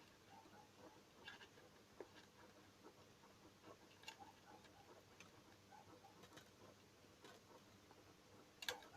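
Near silence with faint, scattered clicks and small taps from handling seed beads on fishing line, the strongest few clicks near the end.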